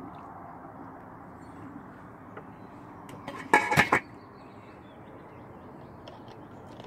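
A brief metallic clatter of a stainless brew-kettle lid about three and a half seconds in, over a faint steady hum.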